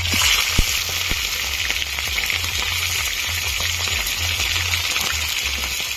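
Raw chicken pieces going into hot oil in an aluminium kadai: the oil bursts into a sizzle at once and keeps sizzling steadily as the meat starts to fry. A couple of soft knocks in the first second as pieces land in the pan.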